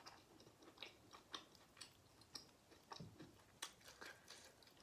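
Faint close-up chewing of rotisserie chicken, with short wet mouth clicks and smacks coming about every half second.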